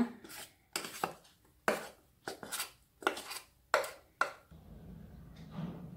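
Metal spoon scraping thick cake batter out of a steel bowl into a cake tin: a run of short scrapes and clinks of spoon on metal, about one a second, stopping after about four seconds.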